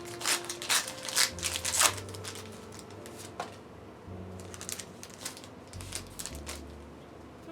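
Pokémon trading cards being flicked through one by one by hand. A quick run of snapping clicks comes in the first two seconds, then sparser single clicks.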